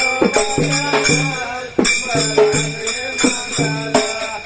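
Instrumental passage of Dhangari ovi folk music between sung lines: regular drum strokes and jingling, tambourine-like percussion over sustained melodic notes.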